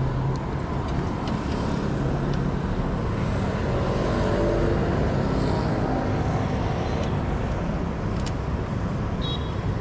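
Steady street traffic of passing motorbikes and cars, swelling a little about halfway through as a vehicle goes by close.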